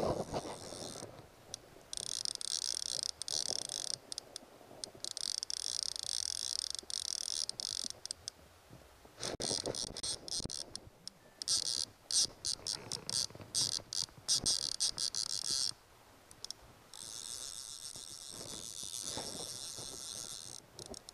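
Fly reel's ratchet clicking in a fast high-pitched buzz, in spells of a few seconds that start and stop abruptly, as a salmon is played on the rod.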